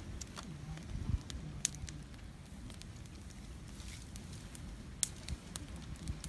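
Open wood fire of sticks and dry palm-frond stems crackling, with scattered sharp pops and snaps at irregular intervals.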